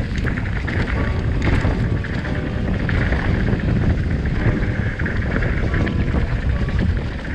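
Rockrider mountain bike riding downhill over a rough trail: tyres rumbling on dirt and rock, with frequent small knocks and rattles from the bike. Steady wind noise buffets the camera microphone.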